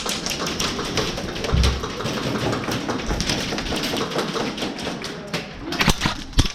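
Airsoft gunfire and BB hits: a dense, irregular clatter of clicks and taps, with a few louder cracks near the end.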